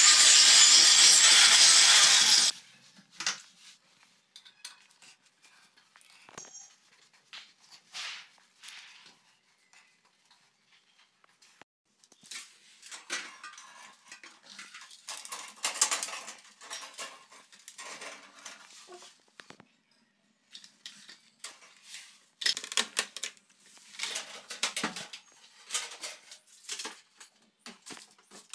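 Electric drill running steadily into a tiled wall, stopping suddenly about two and a half seconds in. Then scattered clicks and rattles of plastic tubing and fittings being handled and pushed together.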